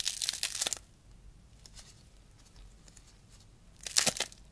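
Crisp caramelised crust of a baked canelé crackling as it is squeezed and torn open by hand, in two bursts: one lasting most of a second at the start, and a shorter, louder one about four seconds in.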